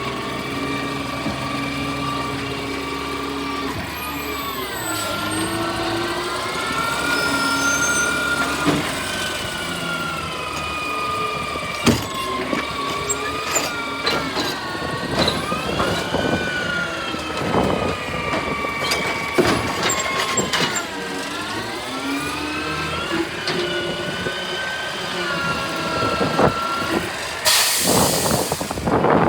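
Garbage truck engine revving up and down repeatedly, with scattered clunks and knocks. A loud burst of air hiss comes near the end, like an air brake releasing.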